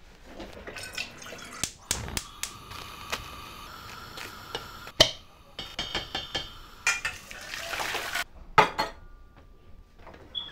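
Kitchen clatter of pots, pans and utensils, an irregular scatter of sharp clicks and knocks, while a glass jar of pasta sauce is twisted open by hand.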